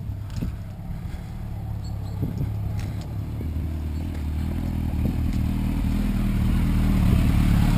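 Motorcycle engine running at low revs with a steady pitch, growing steadily louder as it comes closer.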